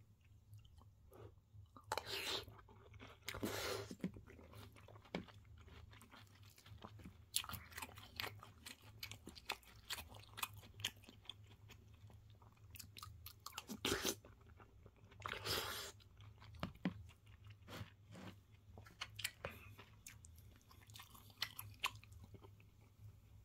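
Close-miked chewing and crunching of breaded, deep-fried pork cutlet with curry and rice. There are loud crunchy bites about 2 and 3.5 seconds in and again at about 15 seconds, with many short wet clicks of chewing between them, over a steady low hum.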